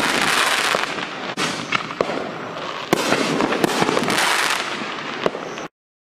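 Widow Maker 6-inch double-break canister aerial shell bursting: the first break's dense crackling runs on, then the second break goes off about three seconds in with a sharp report followed by more crackling pops. The sound cuts off suddenly near the end.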